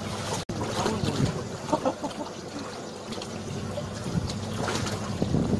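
Fishing boat's engine humming steadily, with wind and water noise around it. The sound cuts out for an instant about half a second in.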